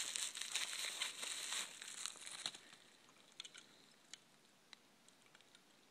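Packaging crinkling and tearing as a toy is unwrapped by hand, for about the first two and a half seconds, then only a few faint light clicks.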